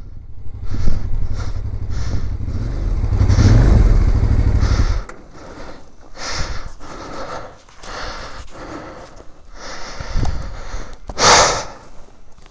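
Motorcycle riding with heavy wind rumble on the helmet-mounted microphone as the bike slows and pulls up; the rumble stops suddenly about five seconds in. After that come intermittent gusts of wind noise on the microphone, the loudest a sharp blast near the end.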